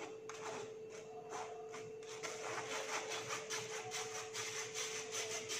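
A spoon scraping round and round against the wire mesh of a metal flour sieve, pushing flour through into a steel bowl in quick repeated strokes that grow steadier from about two seconds in. A faint steady hum sits underneath.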